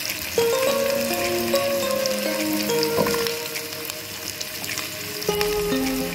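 Chopped onion, garlic and potato chunks sizzling and crackling as they fry in oil in a pan, under background music of slow held notes that step from pitch to pitch.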